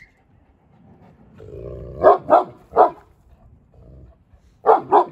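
Large Kangal-type shepherd dog barking: three barks in quick succession about two seconds in, then two more near the end.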